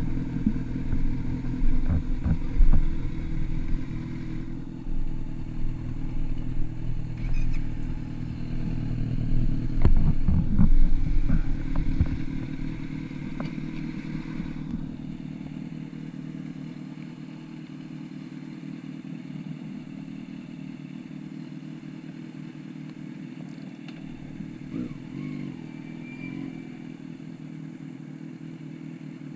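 Motorcycle engines idling close by, with louder bursts and scattered clatter about ten seconds in. After about fifteen seconds they settle to one motorcycle engine running steadily and more quietly.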